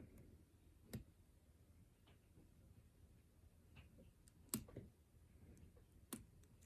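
Four faint sharp clicks, spaced irregularly with two close together past the middle, from a lock pick and tension wrench working the pins of a GOAL P pin-tumbler lock.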